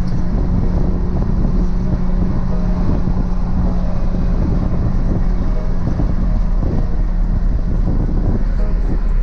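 Nissan GT-R R35's 4.1 L stroked VR38 twin-turbo V6 with its 4-inch stainless exhaust cruising at a steady speed, giving an even low drone with one steady note under the road and wind noise.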